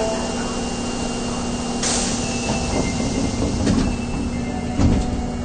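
Sliding doors of an Osaka Metro Tanimachi Line subway car closing at a station stop, heard from inside the car: a sudden hiss about two seconds in and a dull thud near the end.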